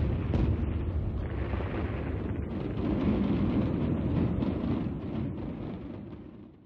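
Fireworks display: a dense, continuous rumble of bursting shells with crackle and a few sharp bangs near the start, fading out near the end.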